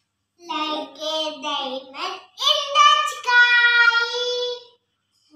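A young child singing a rhyme in a high voice, in short phrases that end on one long held note.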